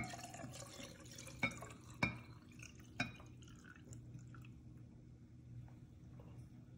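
Melted candle wax being poured from a glass bowl into a glass mason jar: a faint trickle with a few light clicks in the first three seconds.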